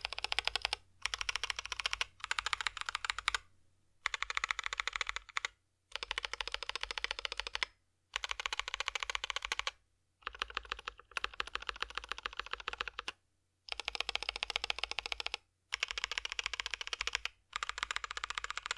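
Modifier and stabilized keys on a mechanical keyboard with Gazzew Boba U4T tactile switches and lubed Durock V2 stabilizers, pressed rapidly in runs of about two seconds with short pauses between: a dense clacking of keystrokes.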